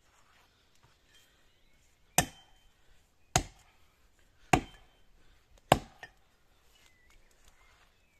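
Four axe strokes biting into the trunk of a standing pine, one sharp chop about every second and a quarter, as the felling notch is cut.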